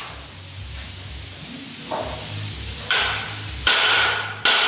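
A small hand hammer striking a freshly plasma-cut steel plate four times, each blow ringing briefly, the last the loudest: knocking the part and its slag loose. A steady hiss runs underneath.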